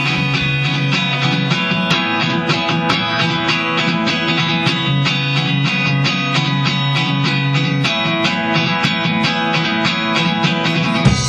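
Live guitar strumming a steady chord rhythm as a rock band's song opens, with the drums coming in right at the end.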